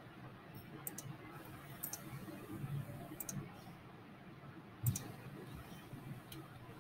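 Computer mouse clicking, faint: about nine short sharp clicks, mostly in quick pairs, the loudest with a dull thump about five seconds in.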